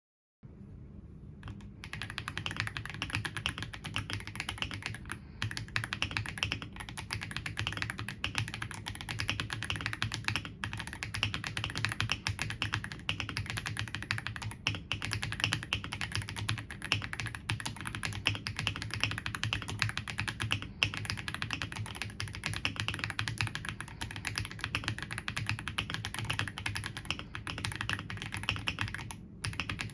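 AULA F87 Pro mechanical keyboard being typed on quickly and continuously, a dense clatter of key clicks. It starts about half a second in, with one brief pause near the end.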